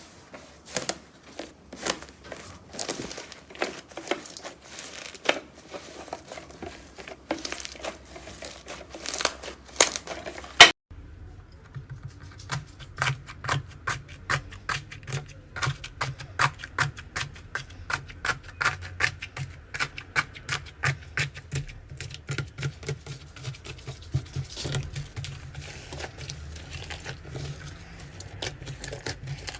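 Slime being pressed and worked by hand, making dense, irregular crackling clicks and pops. About ten seconds in there is a cut to another clip, where the crackling goes on over a low steady hum.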